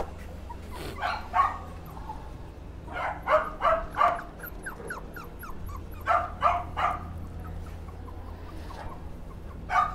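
Puppies yapping in quick clusters of three to five high barks a few seconds apart, with thin whimpers in between.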